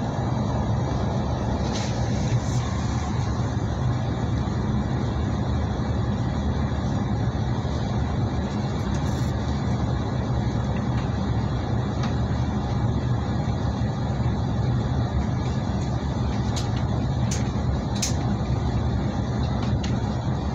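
Passenger train running, heard from inside the carriage: a steady low rumble with a few light clicks near the end.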